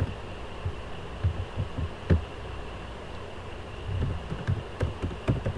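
Soft thumps and a few sharp clicks of typing on a computer keyboard, over a steady faint hum.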